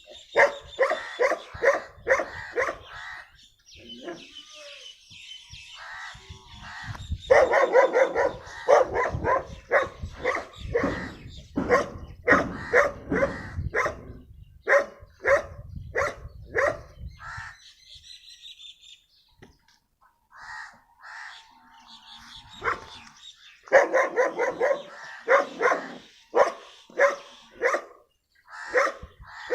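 A dog barking hard and fast in three long runs of quick barks, with short pauses between runs. Birds chirp in the background.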